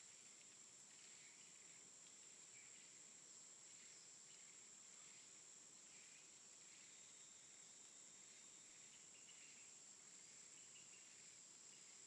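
Near silence: faint outdoor background with a steady high-pitched hum and a few faint, short chirps scattered through it.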